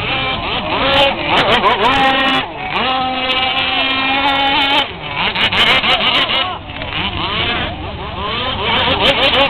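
Radio-controlled racing powerboat engine running at high speed as the boat races across the water, holding a steady high pitch for a couple of seconds in the middle.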